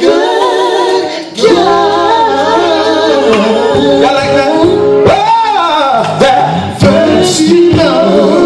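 Male gospel vocal group singing in close harmony, recorded loud in a church sanctuary. About five seconds in, one voice sweeps up and back down over the others.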